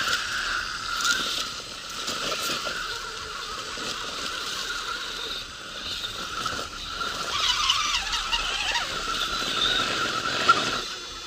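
Electric motor and gears of a radio-controlled crawler truck whining, the pitch wavering with the throttle.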